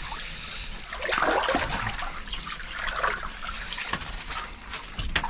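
Water splashing and trickling in an ice-fishing hole as a hooked, lively burbot is hauled up on the line.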